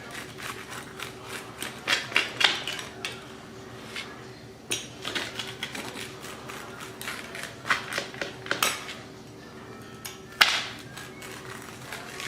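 A freshly baked pizza being sliced: irregular clicks, knocks and scrapes of the cutting tool against the surface beneath, with a sharper knock about ten seconds in.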